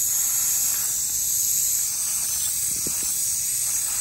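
Hunter MP2000 rotator sprinkler nozzle running, a steady hiss of spraying water close by.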